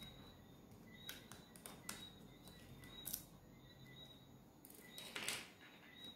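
Faint scattered clicks and taps of a small screwdriver working tiny screws out of a tablet's internal frame, with a brief louder scrape about five seconds in.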